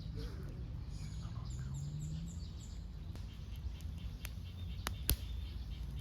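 A bird singing a quick run of high, falling notes, followed by a few sharp clicks, the loudest about five seconds in, over a low steady rumble.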